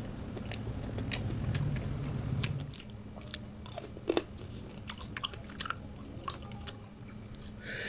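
A person chewing food with the mouth closed, close to the microphone, with scattered short wet lip smacks and mouth clicks.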